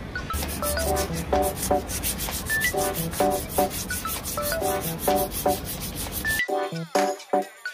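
Sandpaper being rubbed by hand in rapid back-and-forth strokes over the aluminium lower leg of a Ducati upside-down fork, removing rust and corrosion. The sanding stops about six seconds in.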